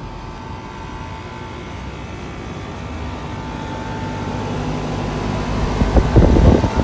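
Outdoor air-conditioner condensing unit running: a steady hum with a faint whine over the rumble of the fan, slowly getting louder, with a loud rough rush of low noise about six seconds in.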